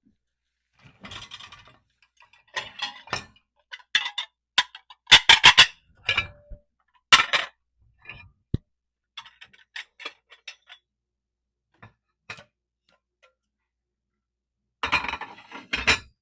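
Dishes and utensils clinking and knocking as a clean dishwasher is unloaded and the items are put away. The sharp clinks are scattered, with a quick run of four loud ones about five seconds in, one brief ringing note just after, and another cluster near the end.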